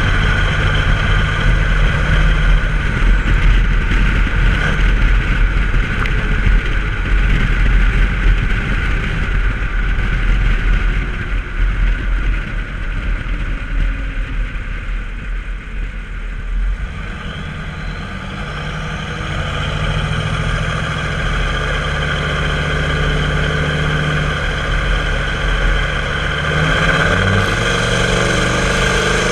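Turbocharged 6.5-litre V8 diesel of a 1995 Chevy K3500 dually running on the road through a 4-inch open turbo-back exhaust, with a steady turbo whistle above the engine. It eases off about midway, then pulls again, and the engine note climbs toward the end.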